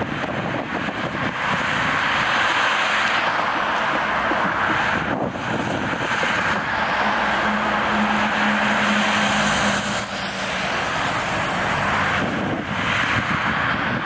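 Steady noise of city street traffic, with a low engine hum coming through from about six and a half seconds in and fading about ten seconds in.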